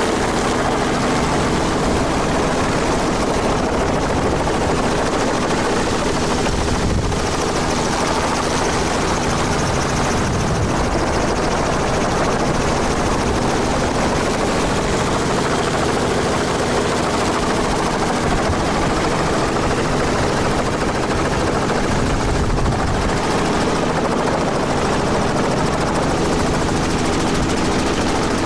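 Helicopter in flight, heard from inside its open, doors-off cabin: a steady, loud drone of rotor and engine with rushing air.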